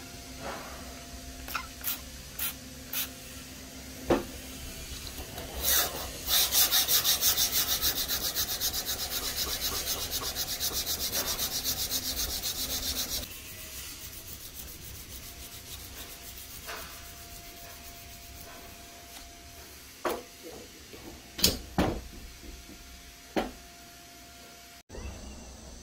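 Steel knife blade being hand-sanded wet with abrasive paper: a run of rapid, even back-and-forth rasping strokes lasting about seven seconds, stopping abruptly. Scattered knocks and taps come before and after it.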